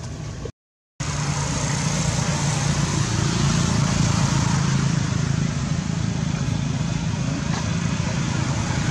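A motor vehicle's engine running steadily, with road traffic noise. The sound drops out for half a second near the start, then carries on at a steady level.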